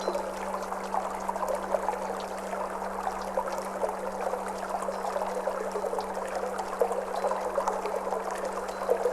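Water flowing and trickling steadily, with small bubbling splashes, over a steady low tone from a Tibetan singing bowl that holds without a break.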